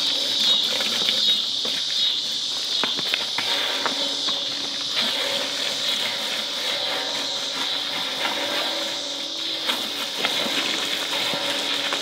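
Water running from a garden hose, a steady hiss with small splashes.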